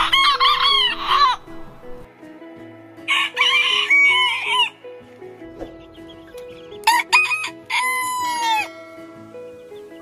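Roosters crowing: three separate crows, each about one and a half seconds long, the last ending on a long held note.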